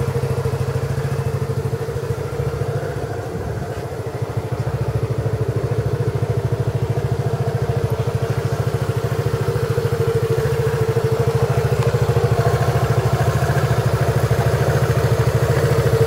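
Piaggio MP3 three-wheel scooter engine running steadily at idle, with an even pulsing note that dips briefly a few seconds in and rises slightly near the end. The clutch has just been repaired: the noise came from play in the plate that holds the clutch shoes, not from worn clutch springs.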